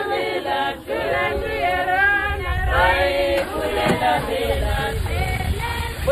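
A group of people singing together, several voices overlapping.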